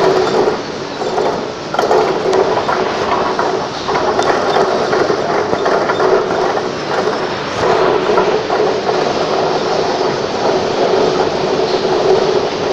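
Forklift running and rolling across a warehouse floor: a loud rumble with a steady hum that swells and drops back every few seconds.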